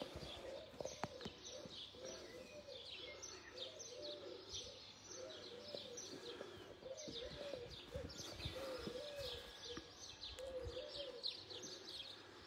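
Faint birdsong: a dove cooing over and over in short, low phrases, with small birds chirping high above it.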